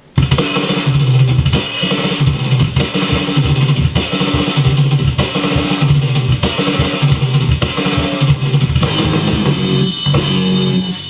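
Heavy, fast punk rock ending played back from the mix: pounding drums with cymbals, bass and electric guitars. The drum and bass hits stop about ten seconds in, leaving the guitars sustaining.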